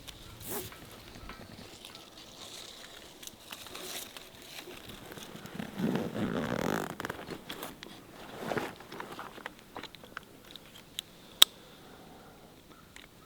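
Faint, scattered crunching and rustling, with a louder rushing noise lasting about a second around six seconds in, a smaller one a couple of seconds later, and a single sharp click near the end.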